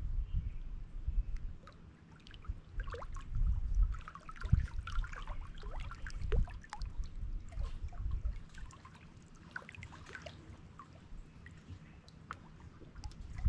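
Small lake waves lapping and splashing against shoreline rocks: irregular low sloshes with trickling, dripping water between them.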